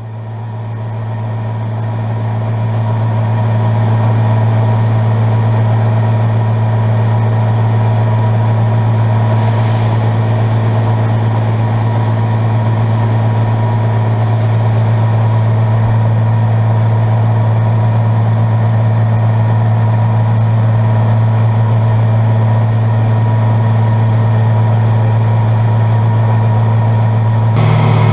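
Steady drone of a Bell 47 helicopter's piston engine and rotor, fading in over the first few seconds and then holding one even pitch.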